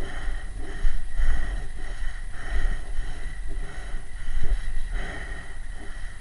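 Uneven low rumble of wind and movement on a head-mounted camera's microphone, with a faint steady high whine behind it.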